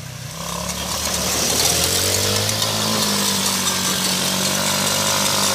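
ATV (quad bike) engine running, growing louder over the first second or so and then holding steady, with a slight rise in pitch in the middle.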